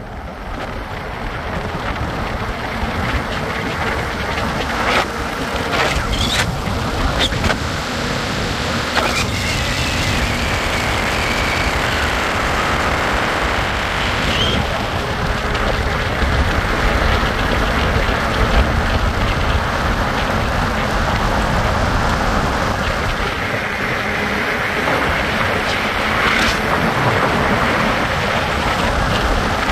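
Steady rushing noise of a loaded bicycle and trailer rolling fast down a steep road tunnel: wind on the microphone and tyre noise, with a few knocks along the way.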